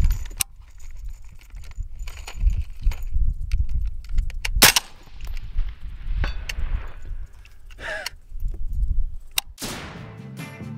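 A single suppressed shot from a Mk12-pattern 5.56 rifle firing 77-grain match ammunition, a sharp crack about halfway through, followed a couple of seconds later by a fainter crack. Music starts near the end.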